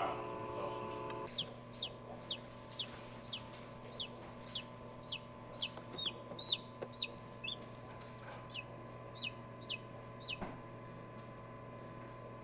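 Newly hatched chicken chick peeping: a run of short, high, falling peeps, about two a second, then a short pause and a few more peeps, over the steady hum of the incubator.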